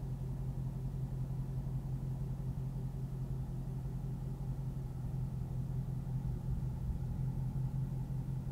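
2016 Ford Mustang Shelby GT350's 5.2-litre flat-plane-crank V8 idling steadily, heard from inside the cabin.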